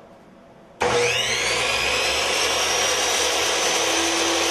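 Delta 10-inch miter saw switched on about a second in: its motor starts abruptly and the blade whine rises quickly as it comes up to speed, then runs steadily at full speed, no longer getting louder.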